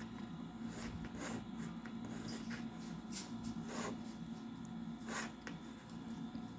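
Faint steady hum of a running Macintosh SE, with a few soft scrapes and clicks scattered through it from a mouse being slid and clicked.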